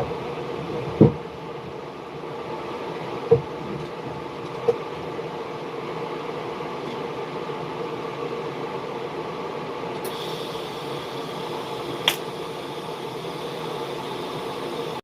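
A steady machine hum with a few short, sharp knocks; about ten seconds in, a higher hiss joins the hum.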